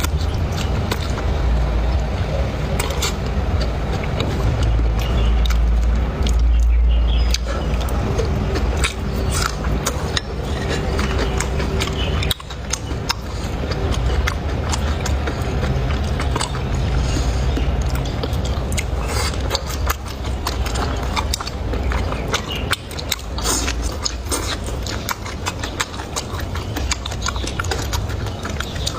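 Close-up eating sounds: chewing, with many small clicks of utensils against dishes, over a steady low rumble.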